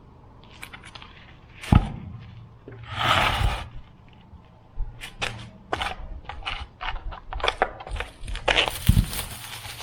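Chunks of cut cedar log being handled and knocking together: a heavy thump about two seconds in, a short rustling scrape, then a run of sharp wooden knocks and clacks.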